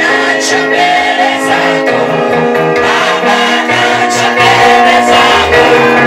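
Gospel worship music: a group singing over an instrumental backing with a moving bass line.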